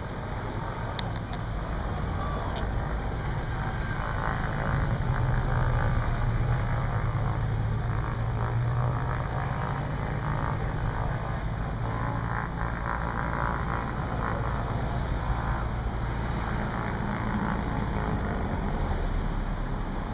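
A motor engine running past with a steady low hum, growing louder about four seconds in and easing off after about nine seconds without dying away.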